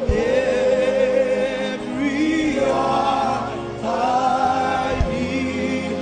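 Gospel worship music: voices sing long, held notes that waver in pitch over a steady low accompaniment. There is a short low thump at the start and another about five seconds in.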